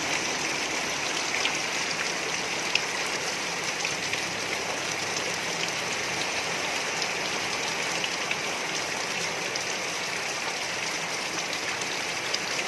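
Rain falling steadily: a dense, even hiss with scattered sharp taps of individual drops.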